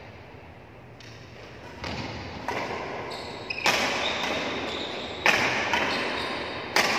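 Badminton rackets striking a shuttlecock during a doubles rally: a series of about six sharp cracks. The last three, a little over a second apart, are the loudest, and each rings on in a large hall.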